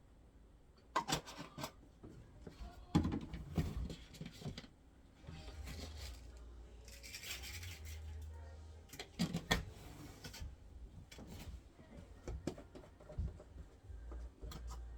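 Laundry being handled at a washing machine: scattered knocks and clicks, with a few seconds of rustling and a low rumble in the middle.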